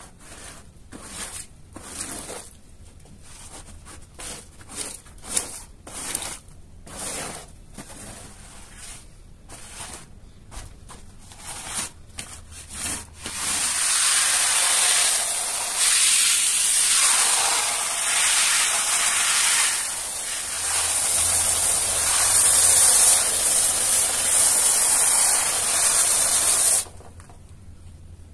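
Short rubbing strokes across a wet, foamy rug, a few a second and unevenly spaced. About halfway through, a high-pressure water spray starts with a loud steady hiss as the rug is rinsed, and cuts off suddenly shortly before the end.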